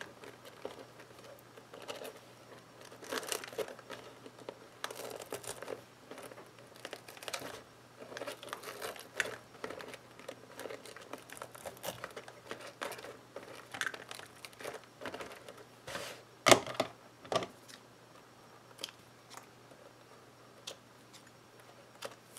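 Cellophane and organdy ribbon crinkling and rustling in irregular bursts as a ribbon is pulled tight and tied into a bow around a small card gift box. Two sharp clicks stand out about two-thirds of the way through.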